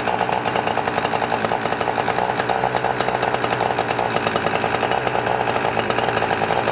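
Husqvarna 359 chainsaw's 59 cc two-stroke engine idling steadily.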